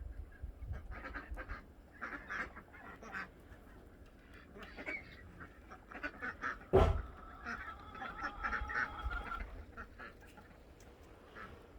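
Farmyard ducks quacking in many short calls, with a sharp knock about seven seconds in, followed by a longer, held call.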